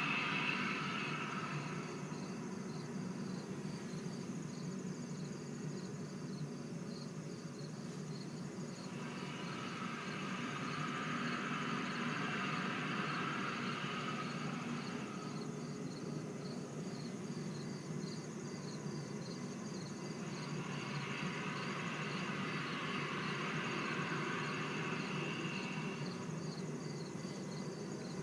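Crickets chirping in a steady, fast, even pulse over a low background rumble. Three times a hissing sound swells up for about six seconds and fades: once at the start, once about nine seconds in and once about twenty seconds in.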